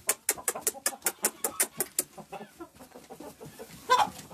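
A flock of Light Brahma chickens clucking, over a fairly even run of sharp ticks, about five a second, with one louder call from a bird about four seconds in.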